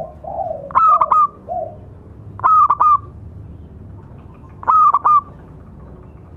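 Zebra dove (perkutut) calling: a few soft low coos at the start, then three loud double notes spaced about two seconds apart.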